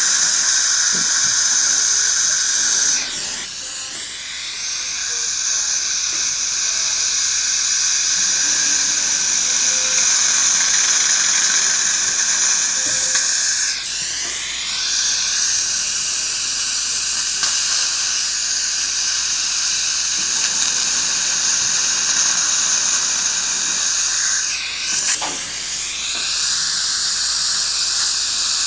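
Implant drill handpiece running with a steady high whine and hiss while drilling the implant site through a surgical guide; three times, about ten seconds apart, its pitch drops briefly and comes back up.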